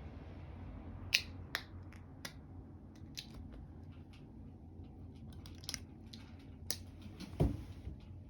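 Cats playing on a hard floor: irregular sharp clicks and taps, with a heavier thump about seven seconds in.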